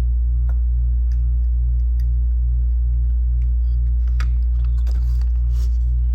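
Steady low hum of an air-conditioning unit, throbbing evenly a few times a second. Over it come a few faint light clicks as a capacitor's wire leads are pushed through a circuit board and bent.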